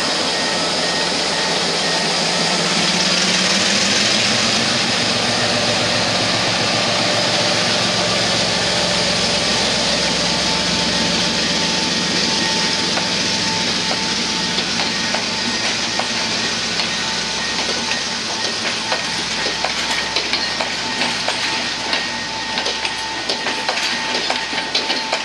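EMD G12 diesel locomotive's two-stroke EMD 567 V12 engine working hard as it pulls away, its pitch rising in the first few seconds, with a steady high whine over it. Passenger coaches then roll past, their wheels clicking over rail joints more and more often in the second half.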